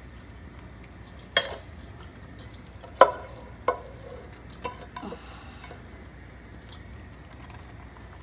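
A cooking utensil knocking and scraping against a pan while stirring pancit bihon noodles, about five sharp knocks in the first five seconds, the loudest near the middle, over a steady low sizzle of frying.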